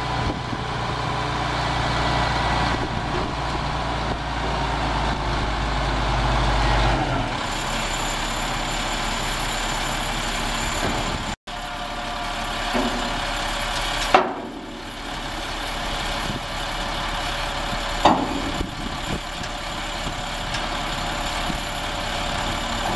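The CAT 3126 turbo diesel of a 1998 GMC C7500 dump truck runs while driving the hydraulic hoist that raises the dump bed, its low drone dropping away about seven seconds in. Later the bed is lowered, with two sharp knocks, one about fourteen seconds in and one about eighteen.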